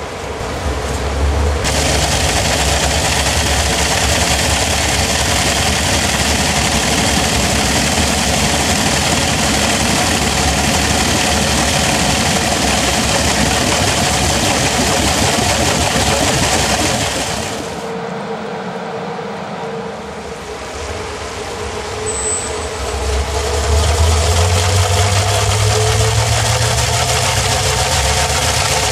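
Motor-driven metal shaft spinning, with a loud continuous rushing whir. It eases off about 18 seconds in, then comes back with a low hum that rises in pitch as it speeds up again.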